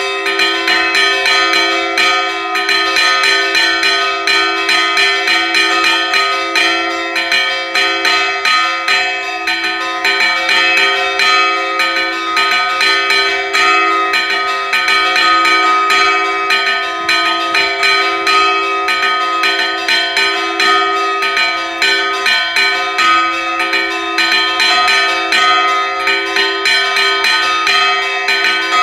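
Church bells chimed in a rapid repique: clappers pulled by ropes strike the hanging bells in quick succession, several strokes a second, over their continuous ringing.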